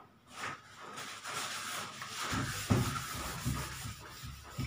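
A whiteboard being wiped clean by hand, a steady dry rubbing swish. A few soft low bumps come in the second half.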